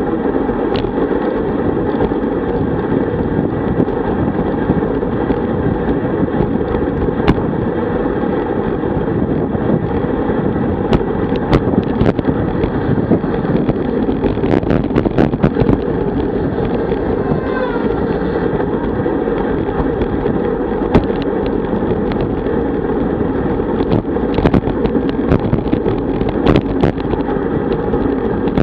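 Wind rushing over the microphone of a bike-mounted camera at road-racing speed, mixed with road noise from the tyres, with scattered sharp clicks and knocks throughout.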